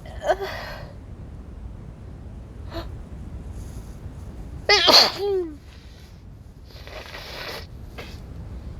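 A woman with a wet head cold sneezing: one loud sneeze about five seconds in, its voiced end falling in pitch, followed about two seconds later by a long noisy breath.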